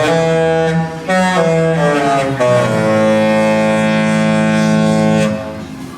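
Live music: a few sustained notes stepping in pitch, then a long held chord that stops about five seconds in.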